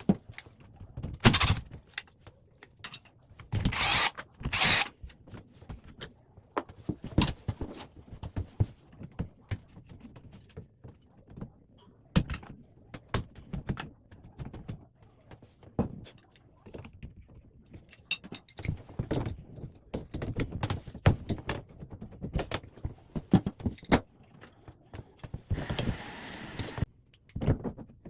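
Metal plumbing parts and hand tools clinking, clanking and knocking in irregular bursts while a bathtub faucet is taken apart and refitted, with a brief hiss about 26 seconds in.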